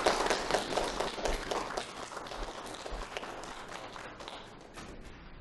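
A group of people applauding, a crowd's hand-clapping that thins out and fades away toward the end.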